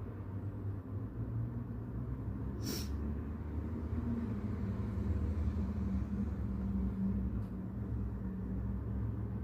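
Steady low brown noise, with a single sharp click about three seconds in and a fainter tick later.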